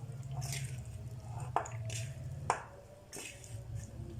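Drained boiled pasta being added to tomato sauce in a pan, with wet squishing and dripping, over a low steady hum. Two sharp clicks about a second and a half and two and a half seconds in.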